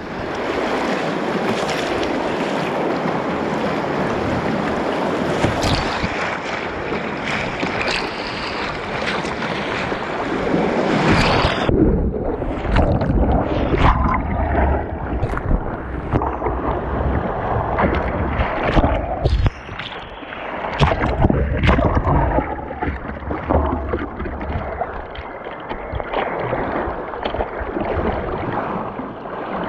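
Whitewater rushing and splashing over a kayak's bow as it is paddled through rapids, with wind buffeting the microphone. A dense, steady rush for the first dozen seconds changes suddenly, about twelve seconds in, into a run of separate splashes and low rumbles.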